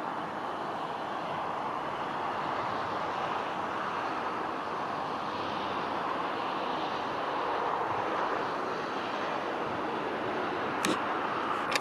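Boeing 747-8 freighter's four GEnx jet engines and airframe giving a steady, broad rushing roar as the jumbo rolls out along the runway after landing. Two short clicks come near the end.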